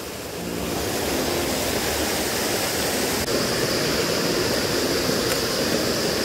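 A small mountain creek tumbling over a little waterfall and rocks: a steady rush of water that grows a little louder about half a second in.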